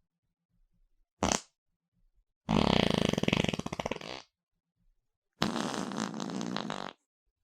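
Three fart sound effects in a row, with silence between them: a short blip about a second in, a long rapid fluttering fart that trails off, and a steadier buzzing fart near the end.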